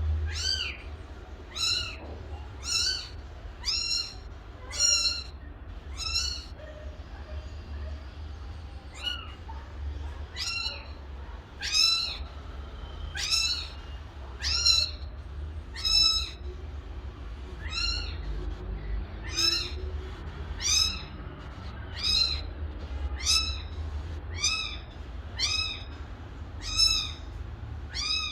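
Kitten meowing over and over in short, high-pitched calls, each rising then falling in pitch, about one a second, with a pause of a couple of seconds near the first third. A steady low hum lies underneath.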